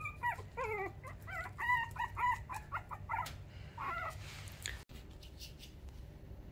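Young puppy whining at a closed playpen gate: a run of short, high-pitched cries with falling and bending pitch over about four seconds. After a break near the end there is only faint scratching and rustling.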